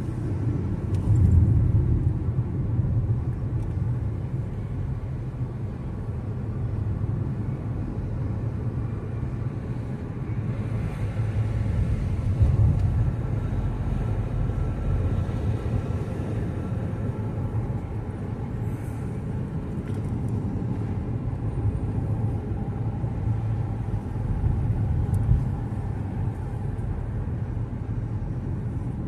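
Road noise inside a moving car's cabin: a steady low rumble of tyres and engine that swells briefly a few times.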